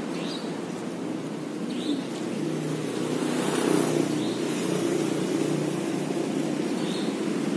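Road traffic going by: a steady low engine rumble that swells about halfway through, with a few short high chirps over it.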